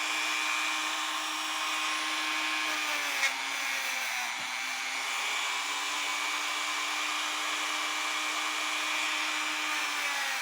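Small high-speed rotary power tool running steadily as it cleans grime off a clock part, a steady motor whine with a hiss over it. Its pitch sags a little about three to four seconds in as it is pressed into the work, with a short click just after three seconds.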